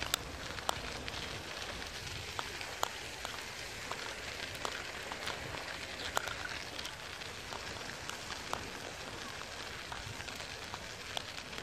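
Bicycle rolling along a rough asphalt path: a steady gritty hiss from the tyres with frequent small clicks and rattles.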